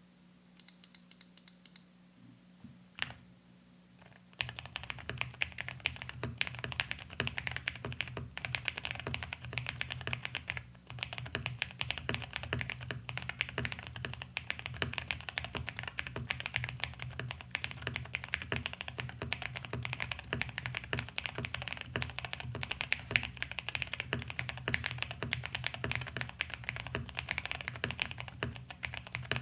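Mechanical keyboard with lubed and filmed Durock Koala tactile switches on 62 g springs, typed on quickly and continuously from about four seconds in, with a brief pause partway through. Before that come only a few faint clicks and one single keystroke.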